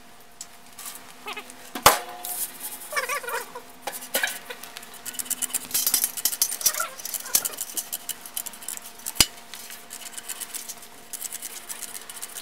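Stainless steel sieve frame and screen mesh being handled while the mesh is fitted: metal clinks and clicks, two sharp metallic knocks about two seconds in and again about nine seconds in, and a stretch of rustling and scraping in the middle, with a couple of short squeaks. Near the end, the mesh is cut with scissors along the frame's edge.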